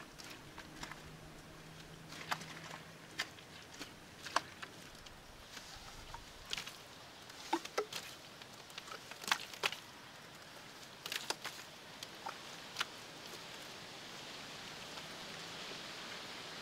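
Hands working wet clay mud in shallow muddy water: scattered wet splats and splashes, with a steady hiss of water building near the end.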